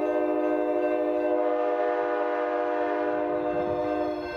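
Diesel locomotive air horn sounding one long chord of several notes held steady, cutting off about four seconds in.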